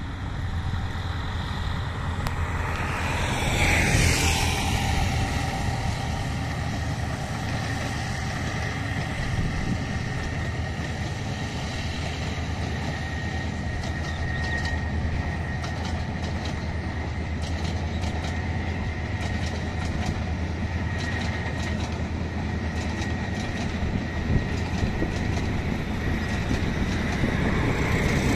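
Diesel-hauled passenger train running past at a distance: a steady low engine rumble with a high steady whine, and wheels clicking over rail joints through the middle. A closer vehicle passes about four seconds in, its sound falling in pitch, and another comes up near the end.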